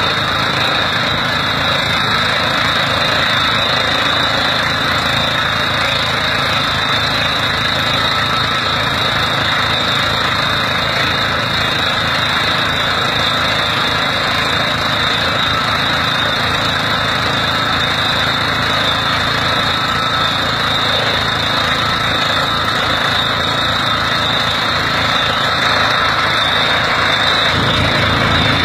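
Tractor engine running steadily under load, driving a water well drilling rig's hydraulics through the PTO, with a steady high whine over it. The low engine throb shifts near the end.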